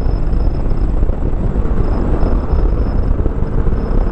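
Wind rushing over the camera microphone on a Bajaj Dominar 400 motorcycle at speed, with the bike's single-cylinder engine running steadily beneath it.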